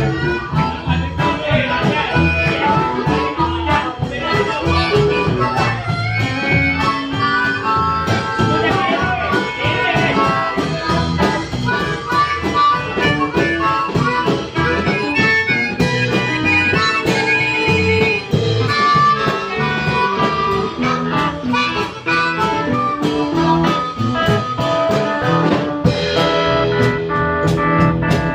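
Live blues band playing: a harmonica cupped to a vocal microphone leads over electric guitar and a drum kit.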